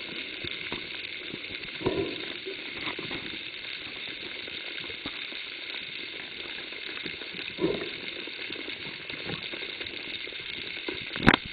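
Underwater ambience heard through the camera: a steady crackling, fizzing hiss. There are a couple of muffled bubbly swells about two seconds in and near eight seconds, and a few sharp knocks right at the end.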